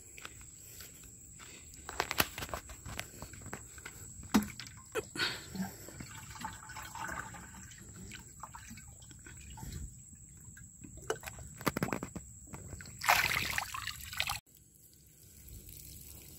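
Water sloshing and splashing as a plastic watering can is dipped into a ditch and filled, with small knocks of handling. About two-thirds of the way through comes a louder rush of water that cuts off suddenly.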